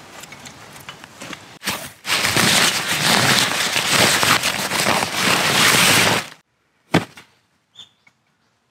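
A nylon stuff sack rustling loudly for about four seconds as it is handled and pulled out of a packed backpack. Then it goes almost quiet, with one sharp knock.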